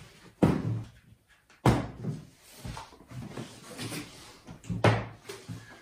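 Clip latches on a hard plastic rifle case being snapped open: three loud, sharp clacks, with softer knocks and rubbing between them as the lid is lifted.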